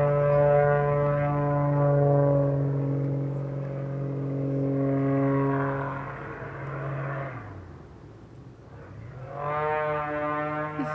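Pitts Special aerobatic biplane's piston engine and propeller droning as it flies past. The steady drone drops in pitch and fades about seven seconds in, then comes back with a rising pitch near the end.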